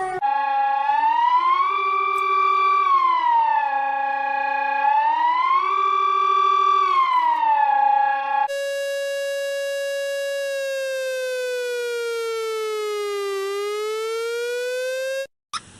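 Emergency alert alarm siren: a tone with many overtones that slowly rises and falls, about every four seconds. About eight and a half seconds in it changes to a single steady tone that slowly sinks in pitch, climbs again near the end, then cuts off suddenly.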